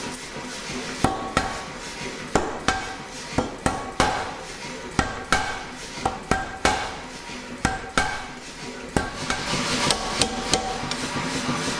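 Blacksmith's hammer striking hot steel on an anvil in irregular blows, a little under two a second, each leaving a brief metallic ring.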